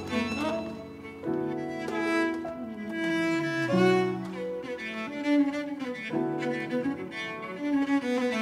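Cello bowed in a melody of sustained notes, one note sliding down about halfway through, with fiddle and piano playing alongside.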